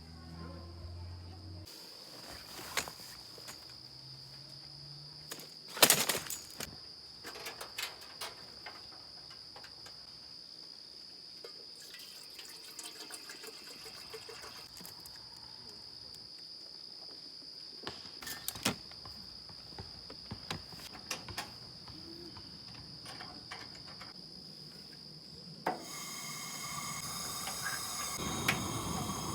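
Insects trilling on one steady high note, with scattered clicks and knocks, the loudest about six seconds in. In the last few seconds a hiss with several steady tones rises.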